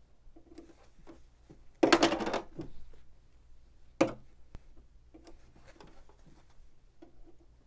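Small embroidery scissors snipping the connecting threads between chain-pieced fabric pieces, with light fabric handling: faint snips, a louder handling noise about two seconds in, and a sharp click about four seconds in.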